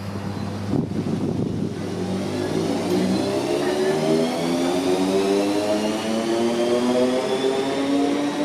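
Class 315 electric multiple unit pulling away and accelerating. Its thyristor-controlled traction motors give a whine of several tones that climb steadily in pitch. A single knock comes just before the whine starts.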